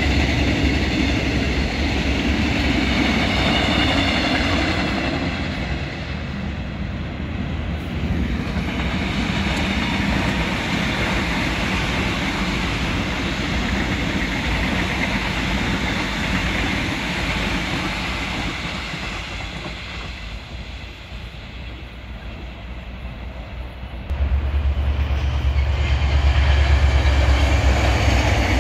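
Passenger trains passing on an electrified main line: steady wheel rumble and rail clatter. The sound changes abruptly about 8 s in and again about 24 s in, the last part carrying a much heavier low rumble as a Korail passenger train passes.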